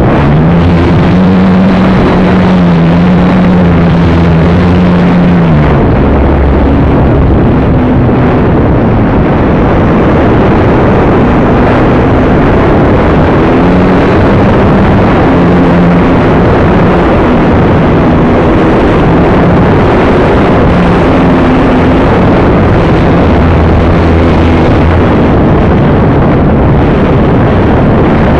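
Electric motor and propeller of an AcroMaster RC plane heard from a camera mounted on the plane: a loud, dense whirr with heavy wind noise on the microphone. Its hum shifts in pitch several times, dropping about five seconds in.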